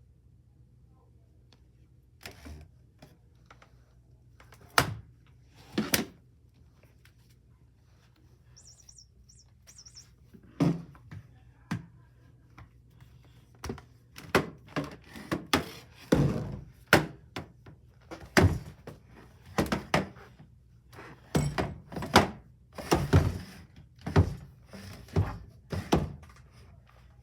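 A series of irregular knocks and thuds, a few at first and then coming thick and fast from about ten seconds in, with a few brief high squeaks a little before that.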